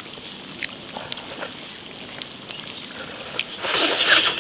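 A few faint clicks of a spoon against a bowl, then near the end a loud slurp, under a second long, of broth being sucked from a spoon while eating.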